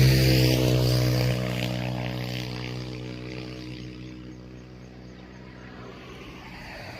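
A motor vehicle's engine droning steadily as it moves away, fading over the first few seconds to a faint hum.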